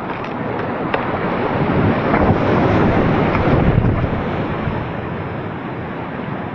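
Rushing water of a small waterfall pouring around a packraft, with wind buffeting the microphone. It swells to its loudest a couple of seconds in, then eases.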